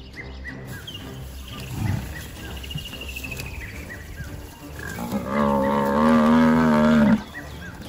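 African buffalo, pulled down by a pride of lions, bellowing in distress: one long, loud moaning bellow about five seconds in that breaks off abruptly. A short low growl comes about two seconds in.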